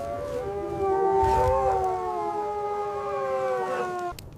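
Wolf pack howling together: several long howls at different pitches overlap, sliding slowly and mostly falling, and break off together just before the end.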